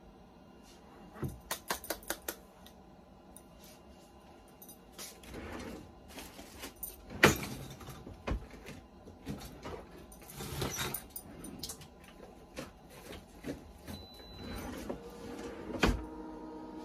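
Scattered clicks and knocks of things being handled, the loudest about seven seconds in. Near the end the automatic heat press beeps as its press countdown runs out, with a thump among the beeps.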